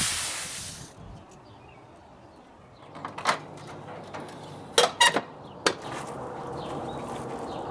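Garden hose spray hissing as it rinses the air conditioner condenser's coil, cutting off about a second in. A few sharp knocks and clacks follow a little later.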